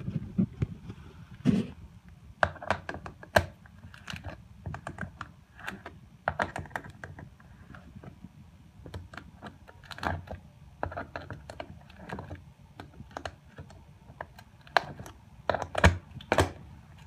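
An adjustable wrench clicking and clinking against the bolts of a plastic shower drain's clamping ring as they are tightened down onto the rubber pan liner. It makes an irregular run of sharp clicks, with a few louder knocks near the end.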